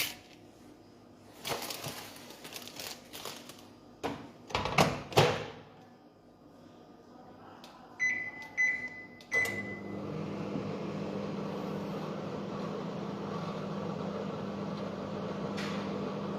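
Microwave oven being set going: a few knocks and clicks as the door is handled and shut, three short keypad beeps, then the oven starts running with a steady hum for the popcorn cycle.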